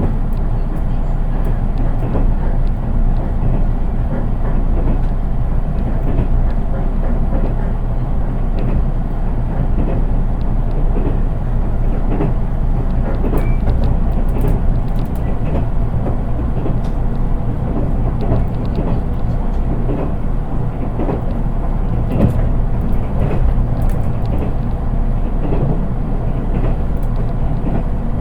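Cabin running noise of a JR East 183 series electric train, heard from inside its KuHa 183 unpowered driving trailer car, so without traction motor sound. A steady rumble of wheels on rail, with scattered clicks from the track.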